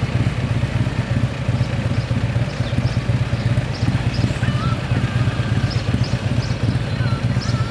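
Large motorcycle engine idling with a rapid, even low pulse. Faint high chirps come and go over it.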